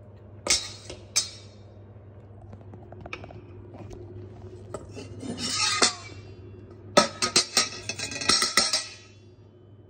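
Metal ladle and fork clinking and scraping against a stainless steel mixing bowl. There are two sharp clinks in the first second and a scrape around the middle, then a quick run of clinks for about two seconds near the end.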